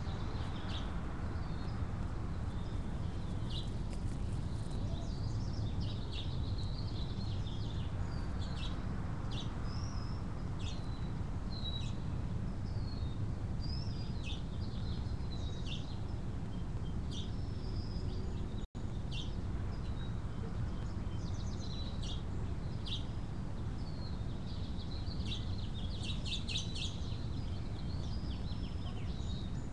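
Birds chirping in many short, high calls, scattered throughout and busiest near the end, over a steady low rumble. The sound cuts out for an instant about two-thirds of the way through.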